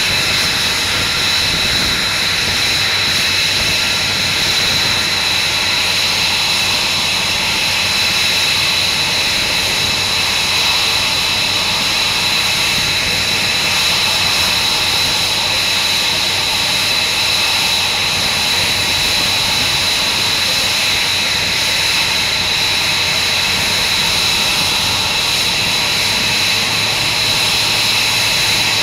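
F-22 Raptor's twin Pratt & Whitney F119 turbofan engines running steadily while the jet stands on the ramp. It is a loud, constant roar with a high-pitched whine.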